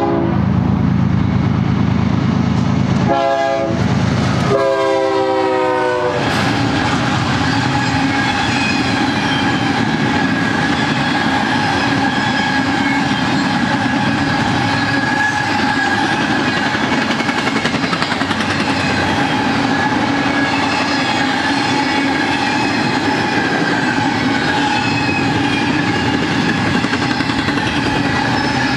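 Air horn of BNSF GE ES44DC diesel locomotives: a long blast cutting off at the start, then two short blasts about three and five seconds in, the second dropping slightly in pitch as the locomotives pass. After that, the steady rumble and clatter of the empty freight cars rolling by, with a few steady ringing tones over it.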